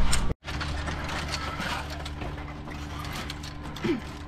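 Metal zip-line gear being handled: carabiners, pulleys and harness hardware clinking and clicking in quick, irregular taps over a steady low hum.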